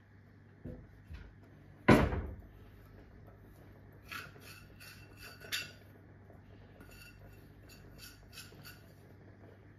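Small steel cup clinking against a stainless steel saucepan as the last brown sugar is knocked and scraped out of it into the pot: one loud clang about two seconds in, then a run of light metallic clinks.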